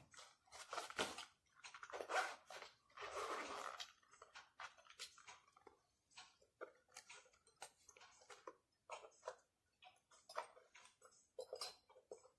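Faint zipper on a small leather-look manicure case being worked open in short pulls, with light clicks and rustles as the case is handled.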